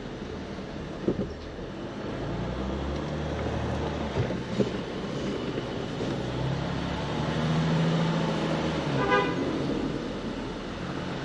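Off-road vehicle engine running as it drives a rough trail, swelling louder for a few seconds in the middle. A few sharp knocks come about a second in and again around four seconds. A short pitched toot sounds about nine seconds in.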